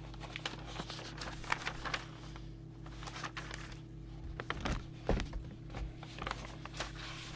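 Paper service-sheet pages in a ring binder being turned and unfolded: short rustles and clicks of handled paper, with a couple of low thumps about two-thirds of the way through. A steady low hum runs underneath.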